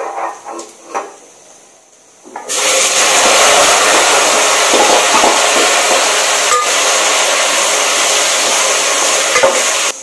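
A few light utensil clinks. Then, about two and a half seconds in, a loud steady sizzle starts as chopped vegetables go into hot oil tempered with mustard and cumin seeds (vaghar). It cuts off suddenly near the end.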